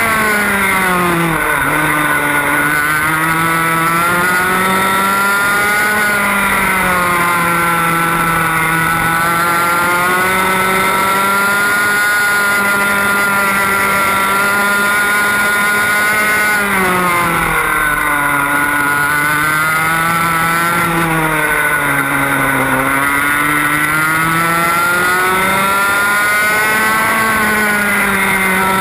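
Two-stroke TAG kart engine running hard, heard from on board the kart. Its high note drops several times as the kart slows for corners and climbs again on each exit.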